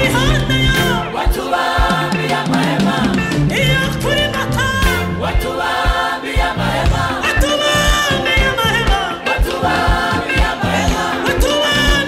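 Gospel choir singing live into microphones, several voices together, over a steady low drum beat.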